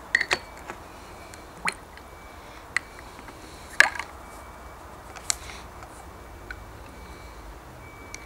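A small metal part in wooden tongs dipped into glass jars of liquid: a series of short, sharp clicks, drips and small splashes, about eight in all, the loudest about four seconds in.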